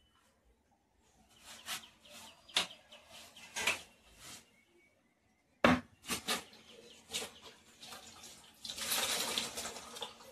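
Short scrubbing and rubbing strokes on a wall and window frame, then a sharp knock a little past halfway. Near the end comes a dense, noisy stretch of water sloshing as a cloth is rinsed and wrung out over a plastic bucket.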